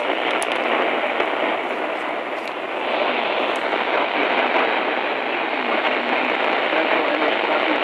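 Steady hiss of static from a NOAA weather radio receiver, with no voice coming through; the hiss is cut off above the radio's narrow audio band.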